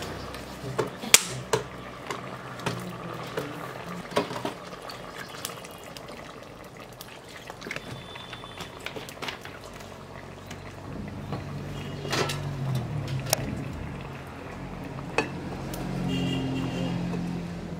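Fish curry bubbling in a metal pot over a wood-fired clay stove, with a steady hiss broken by many scattered sharp clicks and knocks.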